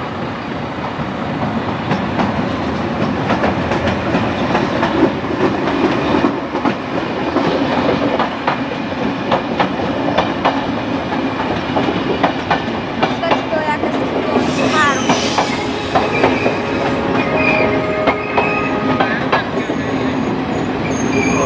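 Electric-hauled passenger train rolling past at low speed: a steady rumble, with the wheels clicking over rail joints and points through the second half. From about two-thirds of the way in, metallic wheel squeal adds several high steady tones and a short gliding screech.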